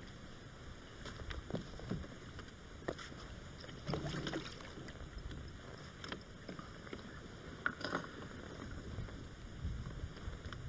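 Hooked chub splashing at the surface beside a plastic kayak as it is played on a light spinning rod, with scattered small clicks and knocks. A heavier splash or knock comes about four seconds in.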